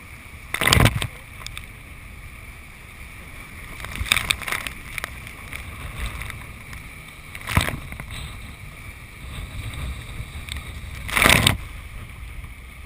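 Colorado River rapids at high water rushing around a raft, a steady roar of moving water. Four loud splashes break through it, a few seconds apart.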